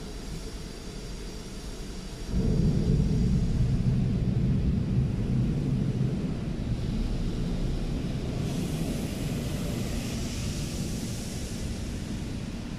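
Automatic car wash heard from inside the car: a low rumble of the wash machinery and brushes working on the car body, which gets much louder about two seconds in. A hissing spray joins in for a few seconds past the middle.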